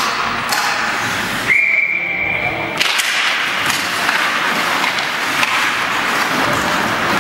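Hockey referee's whistle blown once, a single steady high blast of just over a second, signalling a stoppage of play, over continuous arena noise.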